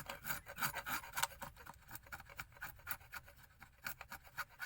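Small hatchet blade shaving and scraping a wooden stick in a quick run of short, irregular strokes.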